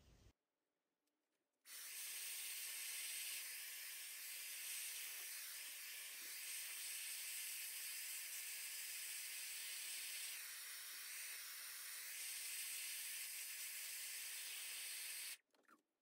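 Dyson Supersonic hairdryer blowing air through a round brush: a steady rushing hiss that starts suddenly about two seconds in and cuts off near the end.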